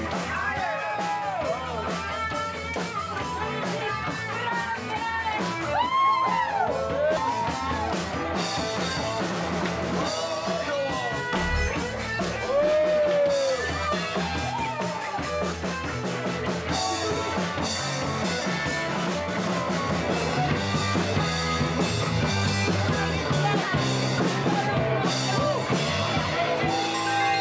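Rock 'n' roll music with electric guitar, keyboard and drums playing at party volume, with voices singing along and calling out over it.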